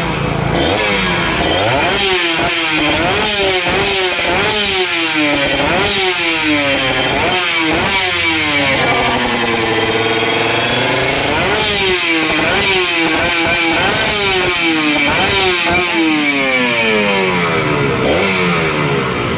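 Kawasaki KR150 two-stroke single-cylinder engine revved repeatedly through an AHT expansion-chamber exhaust with a carbon canister silencer. There are quick throttle blips that rise and fall back about once a second, one longer held rev about halfway through, and a long fall in revs near the end.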